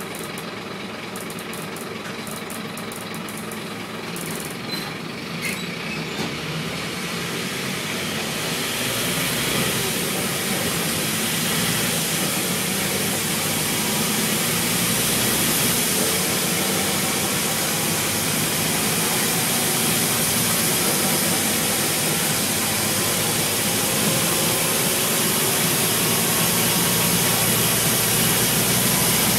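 Scania N230UB single-decker bus heard from on board: the diesel engine running quietly near idle with a few light clicks, then about eight seconds in the bus moves off and the engine and road noise build up and hold steady.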